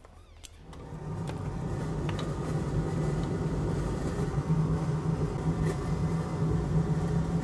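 Fume extractor fan switched on about a second in. Its motor spins up and then runs with a steady hum and airflow rush.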